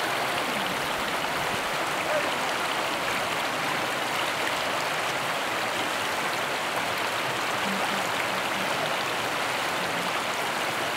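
Small rocky stream flowing, a steady rush of water.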